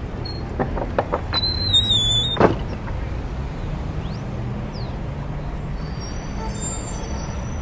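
A metal lever door handle being worked, its latch clicking several times, then a high wavering squeak as the door swings open, ending in one sharp knock about two and a half seconds in.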